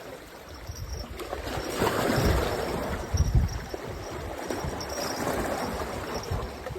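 Wind rumbling on the microphone outdoors, with a low gusty buffeting that is loudest from about two to three and a half seconds in.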